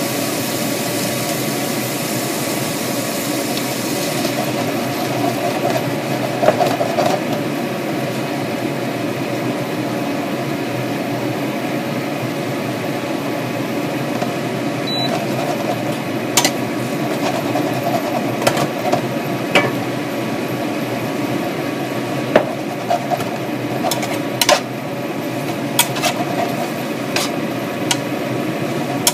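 Glass noodles and cabbage frying in a pan on an induction hob with a steady hiss. In the second half a spatula knocks and scrapes against the pan about ten times as the food is tossed.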